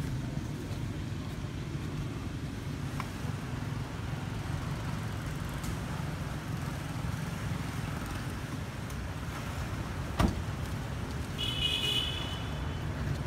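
Steady low background rumble of distant road traffic, with one sharp click about ten seconds in and a short high-pitched call lasting about a second and a half near the end.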